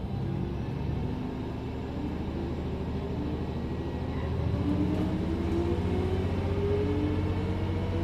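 An engine running and slowly picking up speed, its pitch rising steadily over a low hum.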